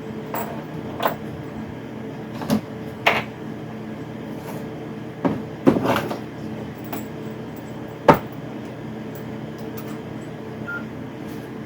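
Scattered clicks and knocks, about seven in all, of tools and parts being picked up and set down on a workbench, over a steady background hum.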